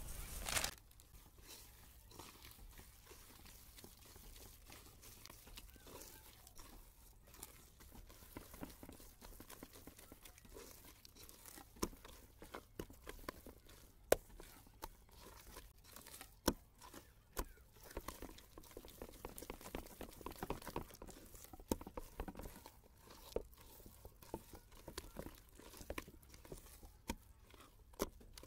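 A bare hand squishing and folding thick ground urad dal batter for medu vada in an aluminium bowl: soft wet squelching broken by irregular sharp clicks and taps, a few of them much louder than the rest.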